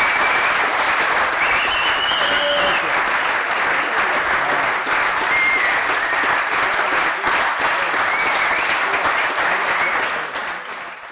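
A roomful of people applauding steadily, with a few high cheers over the clapping, fading out near the end.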